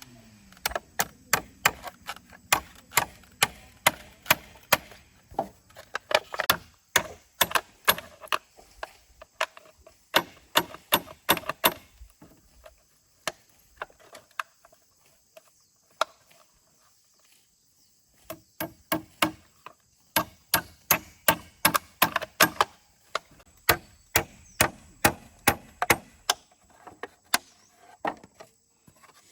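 A hand tool striking wood in quick repeated blows, about two to three a second, like chopping or hammering. The blows stop for several seconds midway, then resume.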